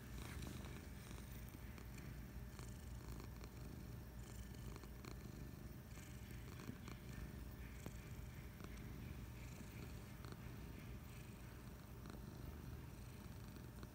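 Domestic cat purring, a steady low rumble.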